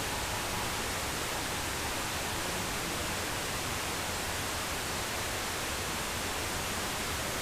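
Steady radio static: an even hiss with nothing else in it, the noise of a weak or poorly received broadcast signal.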